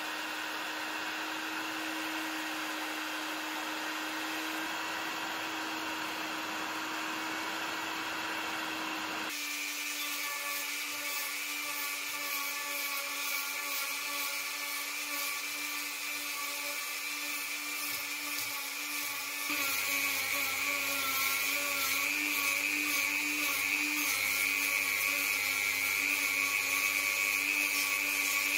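Heat gun blowing steadily with a low hum, cut off about nine seconds in by a flexible-shaft rotary tool whining at high speed. The rotary tool's small abrasive wheel works the cast iron part and grows louder about two-thirds of the way in.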